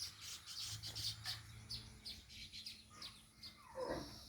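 A colony of weaver birds chirping at their nests, many short, quick high chirps overlapping. Near the end there is a single lower, falling call from another bird.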